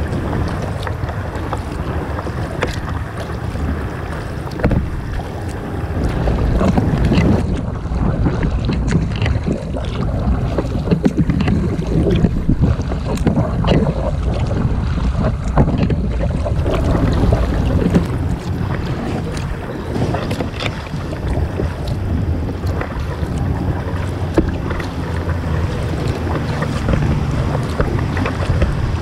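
Kayak paddling: the blades of a double-bladed paddle dip and splash in the water, with repeated irregular splashes beside the hull of an Oru Bay+ folding kayak. Steady wind rumble on the microphone underlies it.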